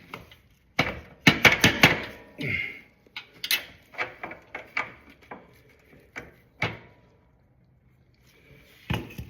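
Sharp hammer taps on the engine mount through-rod of a 1974 BMW R90S, driving it back a little at a time: about a dozen knocks in quick runs, then a pause and one more near the end.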